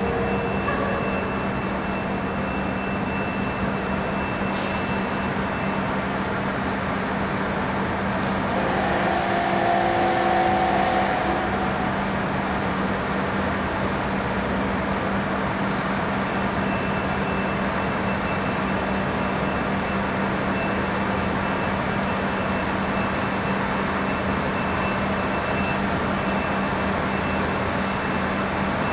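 Mack dump truck's diesel engine running steadily with a constant hum as the truck creeps slowly forward. About a third of the way in, a loud hiss lasts two or three seconds.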